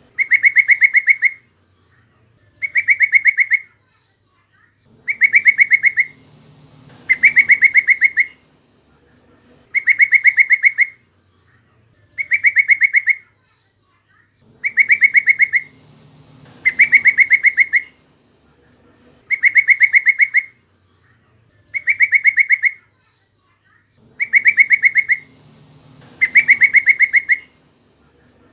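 Yellow-vented bulbul (trucukan) call: a short, rapid chattering run of notes, repeated over and over about every two seconds.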